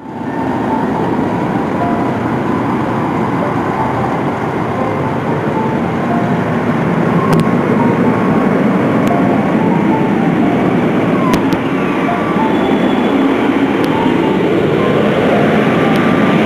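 Jet engines of a large twin-engine airliner running on the runway: a loud, steady rumble and roar, with faint engine whine tones over it.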